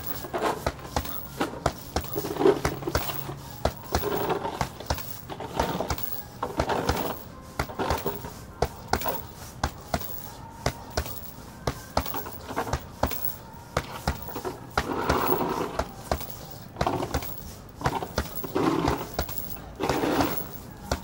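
Boxing gloves hitting a hanging heavy punching bag: irregular sharp thuds, often in quick flurries of several punches.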